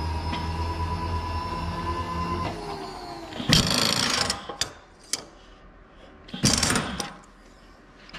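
A milling machine's electric motor whines steadily, then is switched off about two and a half seconds in and winds down, its pitch falling. Then come two short rushing noises about three seconds apart, with a couple of sharp clicks between them.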